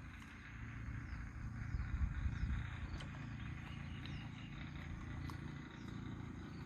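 Outdoor garden ambience: a low rumble on the microphone, strongest about two seconds in, with a few faint, brief high bird chirps.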